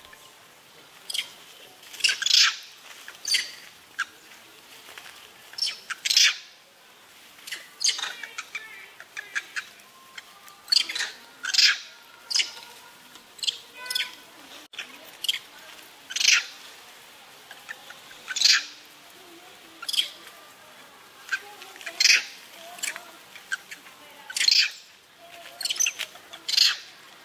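Shrill, short chirp-like animal calls, repeated about every second or two, some in quick pairs.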